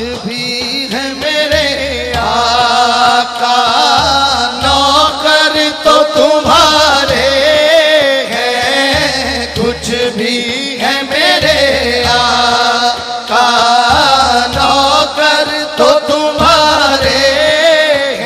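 Qawwali music: a wavering, ornamented melody from voice and harmonium over a steady hand-drum beat.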